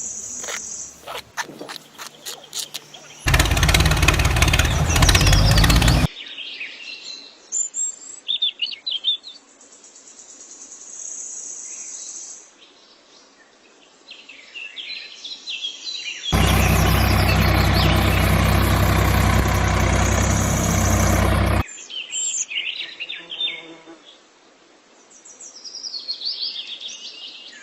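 Birds chirping in short high calls, broken twice by several seconds of loud, steady noise with a low hum under it, the first about three seconds in and the longer one past the middle; a run of clicks near the start.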